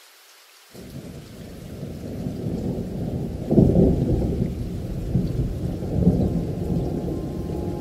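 Rolling thunder over a faint hiss of rain. The deep rumble sets in suddenly about a second in, builds to its loudest near the middle, and keeps rolling in swells.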